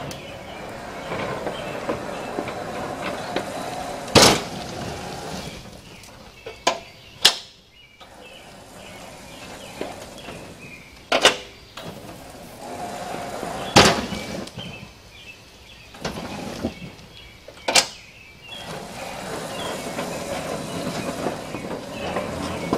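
A homemade electric lawn tractor's drive motor running with a steady hum as it pushes into an old wooden cabinet. Several sharp knocks and bangs come a few seconds apart as the tractor rams the wood.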